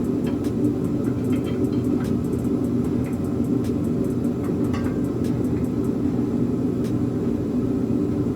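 Steady low mechanical hum, even in level throughout, with a few faint light clicks over it.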